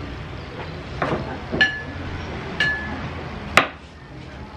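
Kitchen handling at a wooden cutting board: a few knocks, two clinks of a ceramic dish with a brief ring, then a sharp knife chop onto the board near the end as fish is cut.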